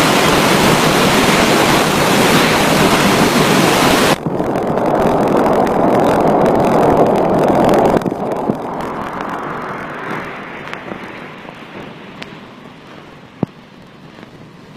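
Typhoon wind and water rushing over the microphone, a loud even roar that changes abruptly about four seconds in and again about eight seconds in, then fades, with a few sharp clicks near the end.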